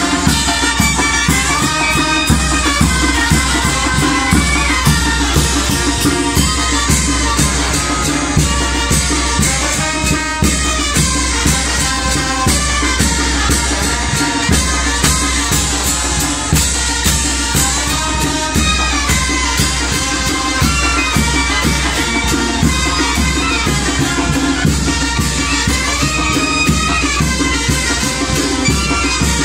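Brass band of trumpets and trombones with bass drum and snare drum playing a lively chinelo dance tune with a steady beat.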